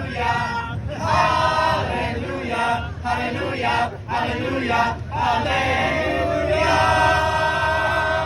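A group of voices chanting together in short phrases of about a second each, then holding one long sung chord near the end.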